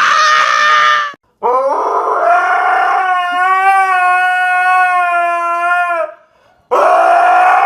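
A dog howling in long, drawn-out notes: the tail of one howl, then a steady howl held for nearly five seconds, then a third that is cut off abruptly.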